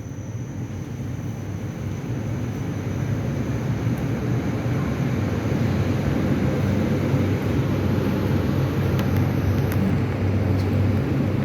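Strong wind rushing with a low roar, growing louder over the first several seconds and then holding steady.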